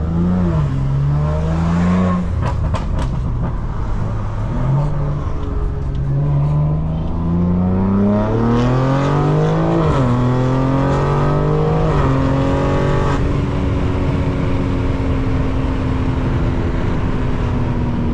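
BMW G80 M3's twin-turbo inline-six, heard from inside the cabin, accelerating through the gears: the engine note climbs and drops back at each upshift, with a few sharp cracks about two seconds in. For the last five seconds it settles to a steady cruise.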